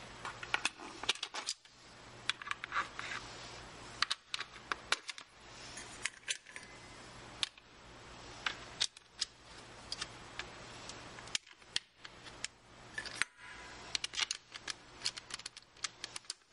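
Small metallic clicks and taps of bolts being handled and threaded by hand into a Yamaha Banshee's stator cover, coming irregularly in scattered clusters.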